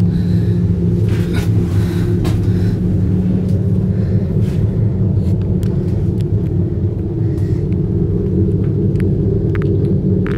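Steady low rumble and hum inside an aerial ropeway gondola cabin as it travels along its cable, with a few faint clicks near the end.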